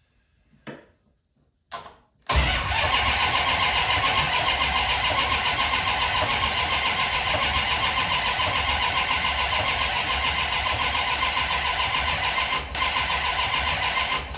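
Small-block Mopar V8 cranked over on its starter with the intake manifold off: after two brief short sounds, a loud, steady, fast-pulsing cranking runs for about twelve seconds, then stops. The engine is being spun over to hunt for a hard metal-to-metal knock.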